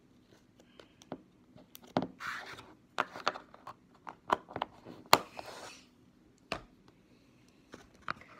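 Handling noise: a run of sharp clicks and knocks starting about two seconds in, with two brief scraping rustles among them.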